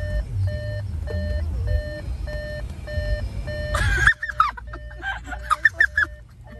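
Electronic beeper sounding a steady run of short, identical beeps, a little over two a second, over a low rumble that cuts off about four seconds in. The beeps carry on fainter after that, with brief voices.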